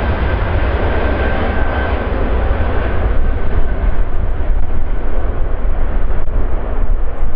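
Jet airliner's engines heard as a loud, steady rumble with a faint whine that fades over the first few seconds, the higher part of the noise dying away as the aircraft moves off.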